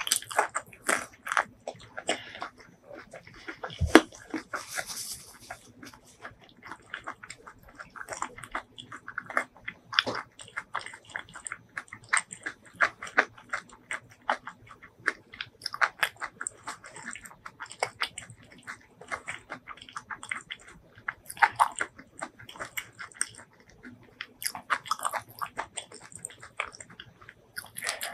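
Close-miked chewing and biting: a continuous run of short mouth clicks and smacks, with one louder click about four seconds in.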